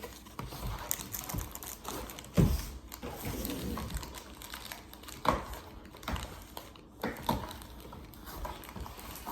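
Crinkling and rustling of a trading-card pack wrapper being handled and worked open by hand, with a couple of knocks, the loudest about two and a half seconds in.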